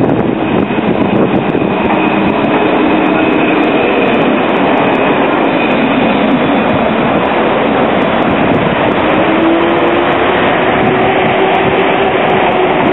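Alstom Citadis electric tram passing close by and pulling away along its street track: steady rolling noise, with a high whine in the first few seconds and a lower whine that slowly rises in pitch later on.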